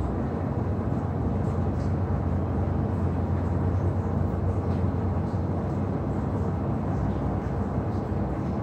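Steady low rumble of jet airliners on the airport apron, with a constant deep hum.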